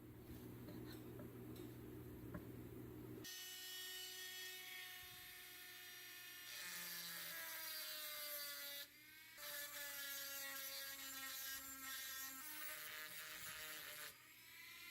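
A small electric motor, such as a handheld power tool, whining at high speed, its pitch sagging and recovering as it is loaded. It stops briefly about two-thirds of the way in, then again just before the end. It is preceded by a few seconds of low hum with faint clicks.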